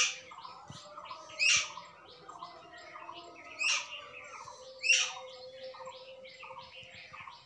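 Birds chirping: a fast run of short, repeated chirps, with four louder calls that drop steeply in pitch, spread over the first five seconds.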